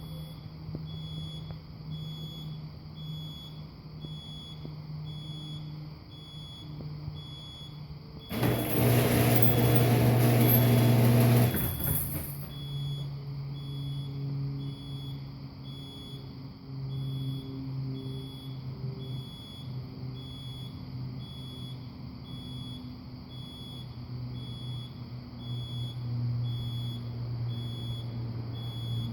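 Garage AutoCloser warning beeper sounding a high beep about twice a second, the warning that the garage door is about to close, over a low steady hum. About eight seconds in, a loud rushing noise lasts about three and a half seconds.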